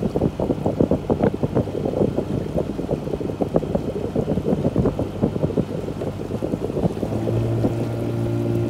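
Wind buffeting the microphone over the hum of a motorboat moving across the water. About seven seconds in, the buffeting eases and a steady low hum with several tones takes over.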